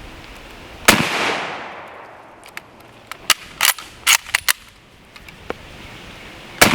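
Two rifle shots from a Mosin Nagant in 7.62x54R, about six seconds apart, each leaving a long echoing tail. A run of sharp clicks falls between the shots.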